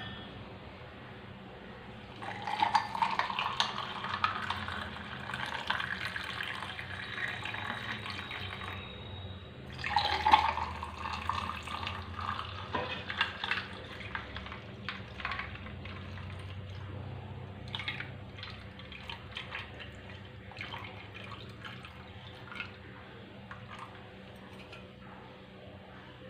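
Pink beetroot-lemon drink poured into tall glasses over ice cubes, one glass after the other. The first pour begins about two seconds in and the second about ten seconds in, each rising in pitch as the glass fills. Light clinks and fizzing follow.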